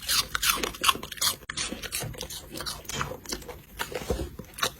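Irregular crunching and scraping, several short crackles a second, like something crunchy being chewed.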